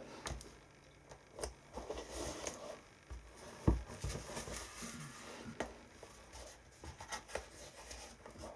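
Close handling noises of a shoe being worked on during a super glue repair: scattered light taps, scrapes and rustles, with one sharper knock a little under four seconds in.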